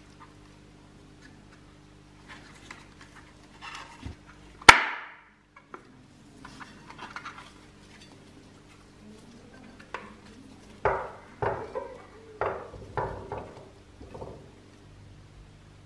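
Parts of a Tonka T6 toy bulldozer handled and fitted together on a wooden table: light clicks and scrapes, one sharp clack about five seconds in, and a run of knocks and clatters near the end as the body is set onto the chassis.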